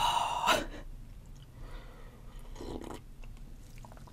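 Close-miked eating sounds after a sip of hot seaweed soup (miyeokguk): a loud breathy burst in the first half-second, then softer wet chewing and mouth noises.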